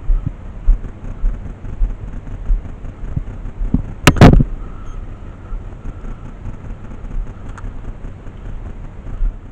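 Low rumble and frequent dull thumps of wind and handling on a body-worn camera's microphone, with one sharp, loud crack about four seconds in.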